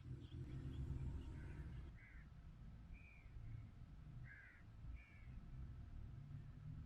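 Wind blowing as a low rumble across the microphone, with a bird calling about five short times over it.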